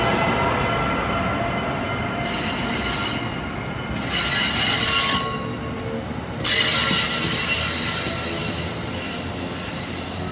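Amtrak Amfleet passenger coaches rolling past close by: steel wheels running on rail with a steady rumble. High-pitched wheel squeal comes in bursts, about two seconds in and again, loudest, around six and a half seconds.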